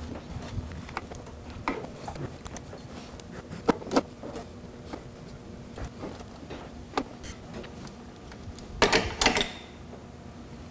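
Husky tube cutter being worked round a metal handlebar tube to cut it, giving irregular clicks and scrapes of the tool on the bar, with a tight cluster of louder clicks about nine seconds in.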